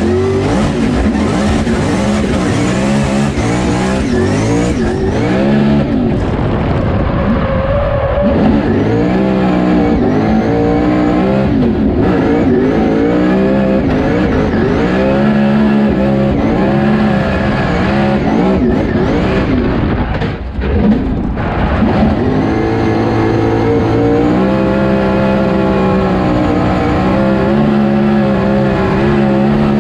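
Supercharged blower drift car's engine heard from inside the cockpit during a drift run, its revs climbing and falling over and over. There is a brief dip about twenty seconds in.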